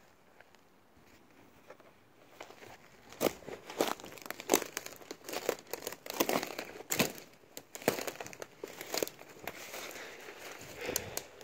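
Footsteps crunching and crackling through dry twigs, fallen branches and needle litter on a forest floor. They start about two seconds in and go on in an uneven run of sharp snaps and crackles.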